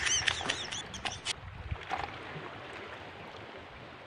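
A man's voice for about the first second, then faint, steady noise of small waves washing over shore rocks, with wind on the microphone.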